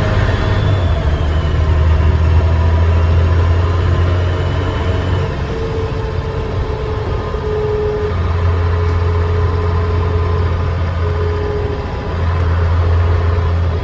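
Dennis Trident double-decker bus engine running under way, heard from on board, its low drone easing off and building again a couple of times, with a faint turbo whistle near the start.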